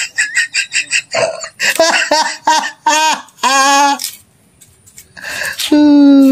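A person's wordless vocal sounds: a quick pulsing run of laughter-like bursts, then a string of short pitched 'ha' sounds, and near the end one long held voiced sound that falls in pitch.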